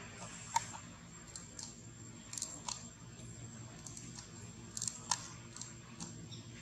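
Scattered soft clicks and crackles, irregular and a dozen or so in all, over a steady low hum.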